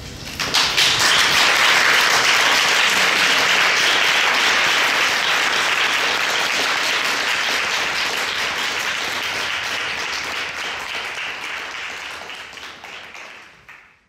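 Audience applauding. It breaks out suddenly about half a second in, then slowly dies down and fades out at the very end.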